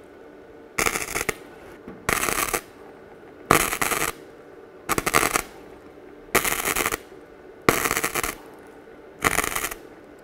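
MIG wire-feed welder arc crackling in seven short bursts, about every second and a half, as spot welds tack a new sheet-steel wheel-arch repair panel onto a pickup truck bed.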